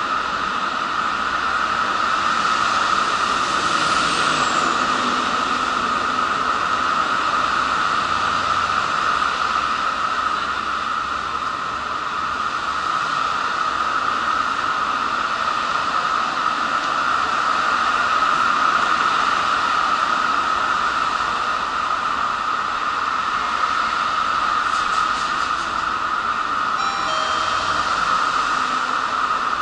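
Steady background noise of an open-air elevated train station, a constant hiss with a strong mid-pitched hum. Near the end, a short electronic chime of a few stepped notes sounds.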